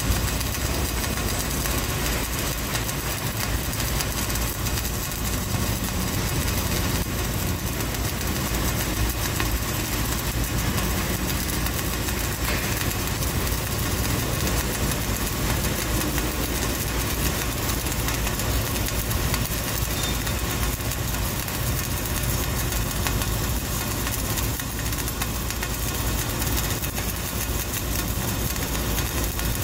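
Flux-cored arc welding: the wire arc burning continuously with a steady, dense crackle.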